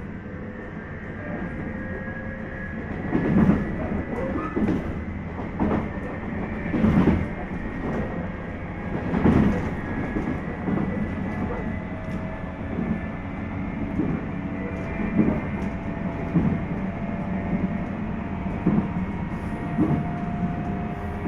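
JR 719-series electric multiple unit (lead car KuMoHa 719-1) running along the line: a steady rumble with a thin whine, and irregular clacks over rail joints every second or two. The uploader suspects this car of having an unusual running noise.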